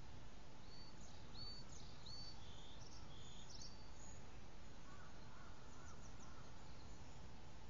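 Steady low background rumble with birds calling: several short, high chirps in the first half and a few fainter, lower notes a little later.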